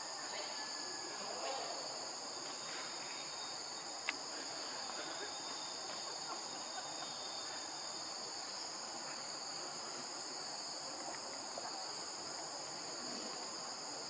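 Steady chorus of insects: an unbroken, high-pitched drone. A single sharp click sounds about four seconds in.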